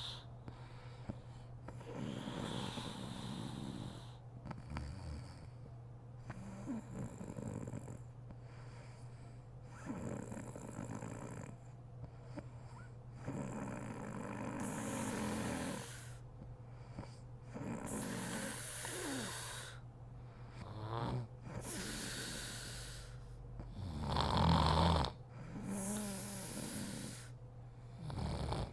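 A sleeping woman snoring, one snoring breath every three seconds or so, with a louder snore late on.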